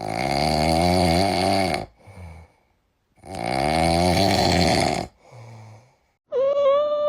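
A cat snoring: two long rasping snores of about two seconds each, with a quiet breath between them. Near the end a drawn-out, high wailing cry begins.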